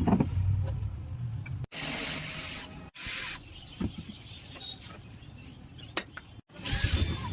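Several short, abruptly cut segments of rubbing and scraping with bursts of hiss, the sounds of handling parts during a vacuum cleaner motor replacement.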